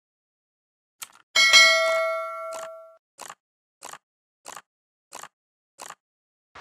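Subscribe-button sound effects: a mouse click, then a bright bell-like ding that rings out for about a second and a half. A run of six short, soft ticks follows about two-thirds of a second apart, and a swish comes right at the end.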